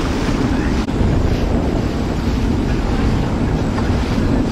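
A watercraft engine running steadily under way, with heavy wind noise on the microphone and rushing water.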